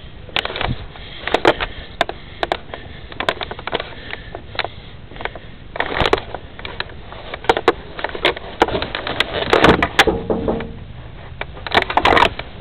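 Handling noise from a jostled handheld camera: irregular knocks, clicks and rubbing, with footsteps, and a short pitched sound about ten seconds in.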